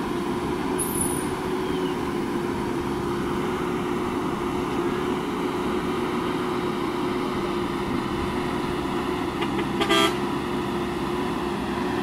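JCB 3DX backhoe loader's diesel engine running steadily as the front bucket pushes soil, with a short horn toot about ten seconds in.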